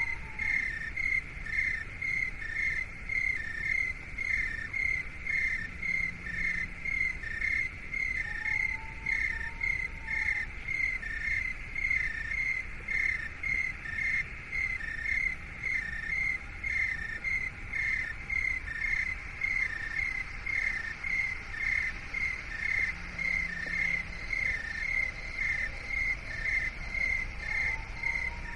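Steady, even chirping like crickets, about three chirps a second, over a low hiss. A faint whistle-like tone rises and falls about nine seconds in and again at the end.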